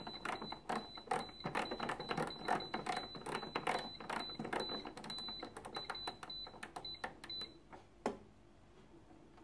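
Moulinex Clickchef cooking robot's control dial being turned step by step to set the timer: a quick run of clicks, each with a short high beep. It stops about seven and a half seconds in, with one last click near eight seconds.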